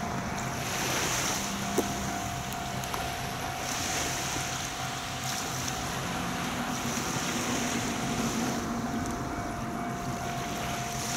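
Seaside ambience: a steady rush of wind and water along a seawall, with a high hiss that swells and fades every few seconds and a faint steady tone underneath.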